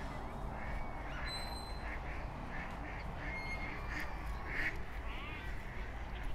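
Ducks quacking, a string of short calls over a steady low background, with one brief thin high whistle about a second in.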